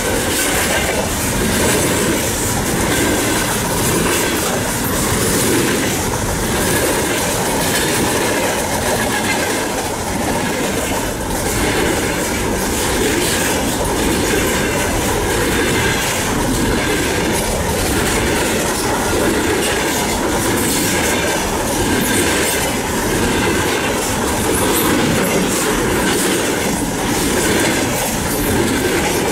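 Container flatcars of a freight train rolling past close by: steady noise of steel wheels on the rails, with repeated clicks as the wheelsets pass over the track.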